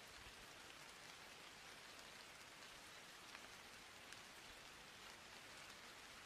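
Near silence: a faint, steady hiss with no speech or music.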